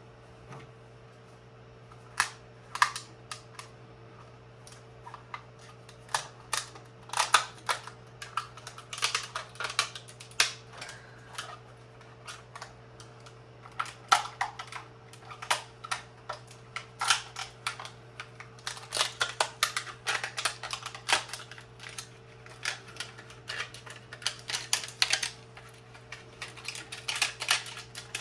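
Plastic support material being snapped and peeled off a freshly 3D-printed part by hand: many sharp cracks and clicks in irregular clusters, over a steady low hum.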